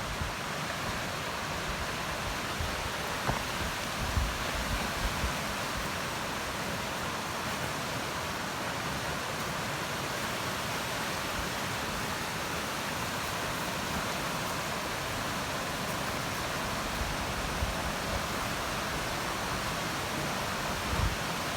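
Steady outdoor rushing noise, even and unbroken. A few brief low thumps of microphone buffeting come a few seconds in and again near the end.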